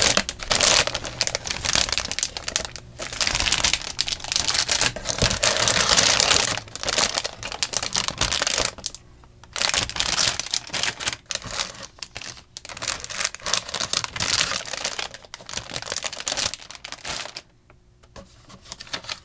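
Clear plastic bags around plastic model-kit parts trees crinkling and rustling as they are lifted and shuffled in a cardboard box, in long stretches broken by a brief pause about nine seconds in and another near the end.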